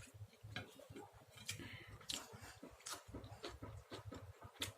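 A person chewing chicken close to the microphone: soft, irregular mouth clicks and smacks over a low steady hum.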